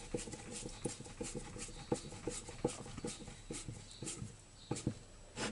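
Screw being driven into a chainsaw's new rubber anti-vibration mount: a run of light clicks about three a second as the fastener is turned. Two louder clicks come near the end.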